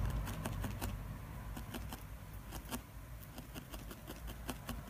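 Felting needle stabbing repeatedly into wool, short faint clicks at an irregular pace of about three or four a second, over a low steady hum.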